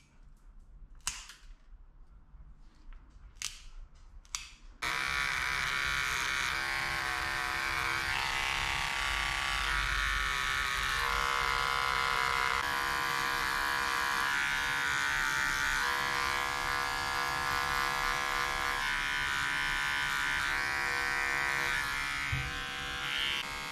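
A few sharp clicks, then from about five seconds in the steady buzz of electric dog grooming clippers trimming the fur around a dog's paw, the pitch shifting slightly now and then as the blade works.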